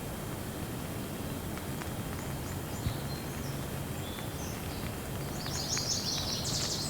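Steady rain with birds chirping over it, ending in a quick run of high chirps.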